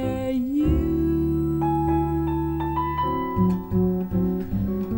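Slow jazz ballad, instrumental passage led by piano. A wavering held note dies away, a chord is struck about half a second in and rings on, and shorter notes follow in the second half.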